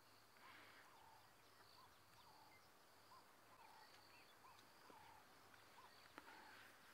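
Near silence: faint bush ambience with a small bird call repeating about every two-thirds of a second and a faint, steady insect hiss.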